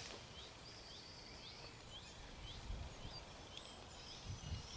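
A small bird chirping, a steady series of short rising notes at about two or three a second, over faint outdoor ambience with a low rumble. A couple of soft low thumps come near the end.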